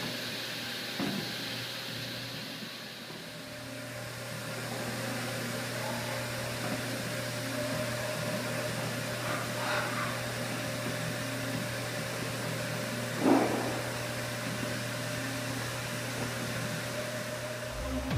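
2012 Haas VF-3 CNC vertical mill running a rigid tapping cycle: a steady machine hum under the hiss of flood coolant. A brief louder burst comes about thirteen seconds in.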